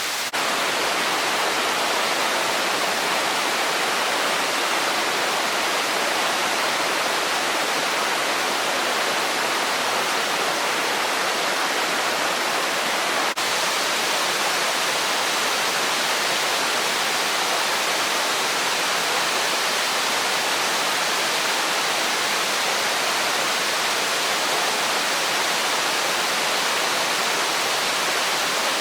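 Waterfall in heavy flow after rain: a steady, dense rush of falling water, with a momentary dip about halfway through.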